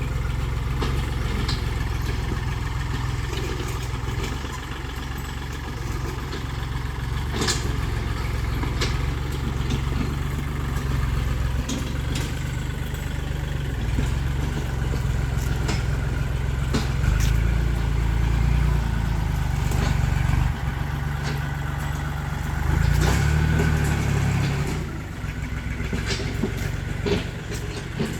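Tractor engine running with a steady low drone while ploughing soil, with scattered clanks and knocks. It grows louder for a few seconds past the middle and shifts in pitch briefly near the end.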